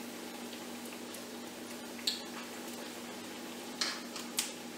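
A metal spoon clicking against a stainless steel mixing bowl while scooping thick fritter batter, three short clicks about two seconds in, near four seconds and just after, over a steady low hum.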